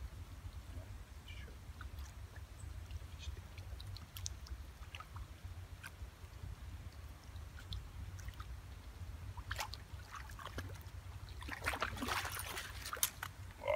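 A hooked carp thrashing and splashing at the pond surface as it is scooped into a landing net, in a burst of splashing near the end. Before that there are only faint scattered clicks over a steady low rumble.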